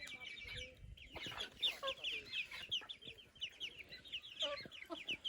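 A flock of chickens calling: many short, high, falling calls overlapping in a continuous chatter, with a few lower calls among them.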